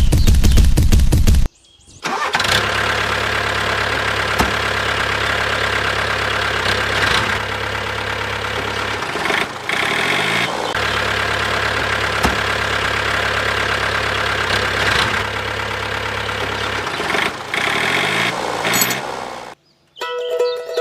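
Truck engine: a loud low rumble for the first second and a half, then after a short break a steady idling run with brief breaks near the middle, cutting off just before the end.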